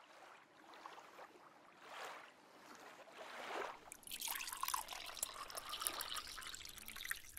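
Faint liquid sound effects: a few soft swishes, then from about four seconds in a steadier run of trickling and dripping.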